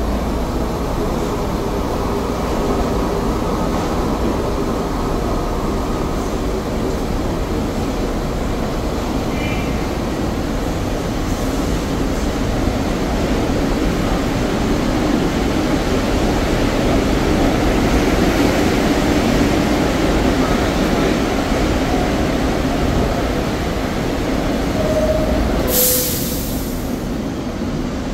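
NYC subway 1 train (R62A cars) standing at the platform, its motors and ventilation running with a steady hum. About 25 seconds in, a two-note descending door chime sounds, and the doors close with a short hiss of air.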